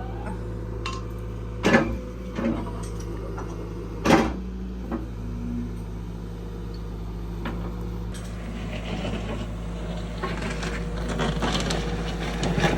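Excavator's diesel engine running steadily, with a few sharp knocks of machinery, two of them loud, in the first five seconds. From about eight seconds in, a rougher, crackling noise builds over the engine.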